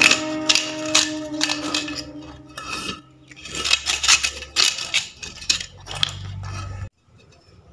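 Screwdriver tip scraping and gouging a hole through a lightweight concrete block: a quick, irregular run of scratching strokes that pauses briefly about three seconds in and cuts out shortly before the end.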